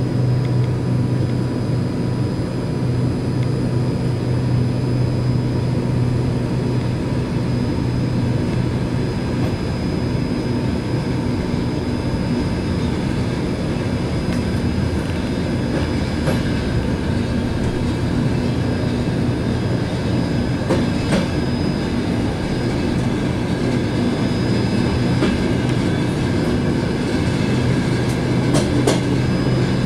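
Passenger train running, heard from inside the rear vestibule of its last car: a steady rumble of wheels on the rails with clickety-clack. A few sharper clicks come about two-thirds of the way in and again near the end.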